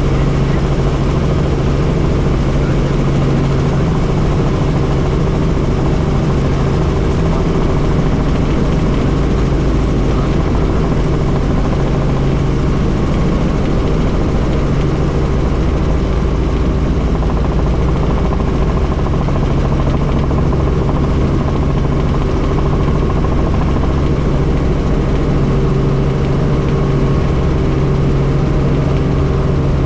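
Helicopter engine and rotor running in flight: a steady, loud drone with a constant low hum and a higher steady tone.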